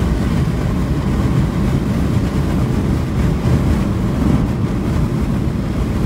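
Road noise heard inside a car driving at highway speed: a steady low rumble.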